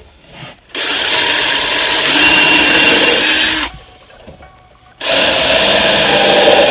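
Cordless drill boring pilot holes into a wooden box, in two runs: one of about three seconds starting just under a second in, and another starting about five seconds in.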